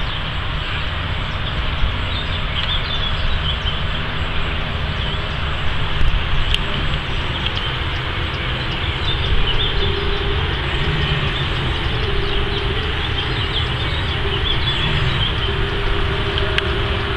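Steady low rumbling outdoor noise with no single clear source, with a faint steady hum joining it about ten seconds in.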